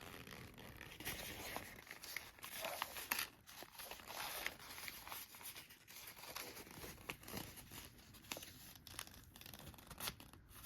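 Sheet of construction paper rustling and crinkling in the hands as a folded origami boat is pulled open and flattened, with irregular soft crackles of creasing paper.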